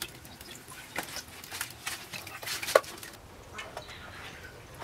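Light, scattered clicks and knocks from bowls and kitchen utensils being handled, the sharpest one a little under three seconds in, then a quieter stretch.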